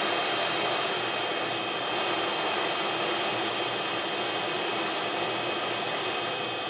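Hot-air rework station blowing a steady hiss of air with a faint hum, set to 300 °C and airflow 6, while a small surface-mount resistor is reflowed back onto the board.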